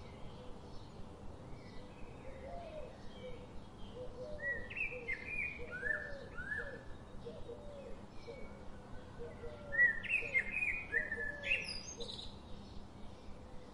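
Birds chirping: a steady run of quieter short repeated calls, with two louder bouts of quick falling chirps about four and ten seconds in.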